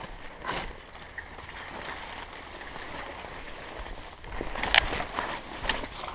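Footsteps and rustling through leaf litter and scrub, with a few sharper crackles of brushed or snapped vegetation, the loudest about three-quarters of the way through.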